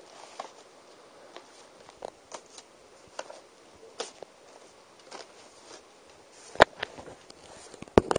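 VHS tape cases being handled and laid out on carpet: scattered soft taps and shuffles, with a few sharp plastic clicks near the end.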